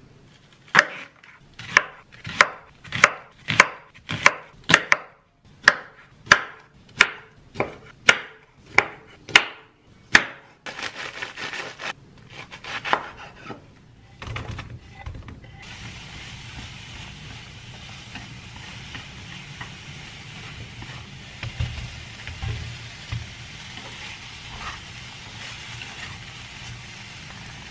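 Kitchen knife chopping on a wooden cutting board: a steady run of sharp strokes, about one and a half a second, for the first ten seconds, then softer, irregular cuts. From about fifteen seconds in, a steady, quieter sizzle of sliced onion and cherry tomatoes frying in a pan.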